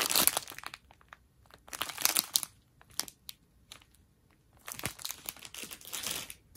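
Plastic packaging crinkling as it is handled, in several bursts: one at the start, one about two seconds in, and a longer one from about five to six seconds, with quiet gaps between.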